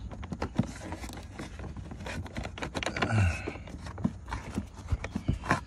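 Rustling with scattered clicks and knocks as a truck's floor mat and carpet are pulled aside by hand close to the microphone.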